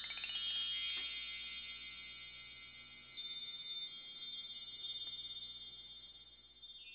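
High chimes struck in quick succession. A rising sweep of tones at the start, then many light strikes that ring on and die away near the end.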